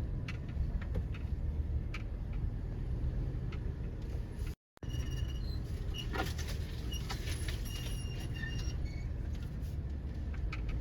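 Cabin sound of a Toyota 4Runner creeping down a steep off-road trail: a steady low rumble from the engine and tyres, with scattered clicks, rattles and short squeaks from the body and loose items. The sound cuts out for a moment a little before halfway.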